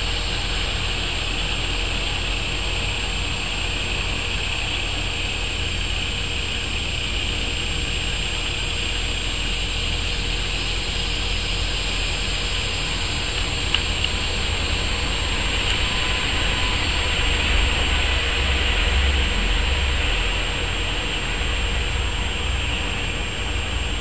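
Steady outdoor ambience: a continuous insect drone in two high, even bands, over a low steady rumble.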